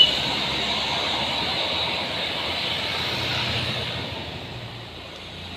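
Road traffic: a minivan's engine and tyres passing close and fading away, with the engine hum of an approaching motorcycle and bus beneath.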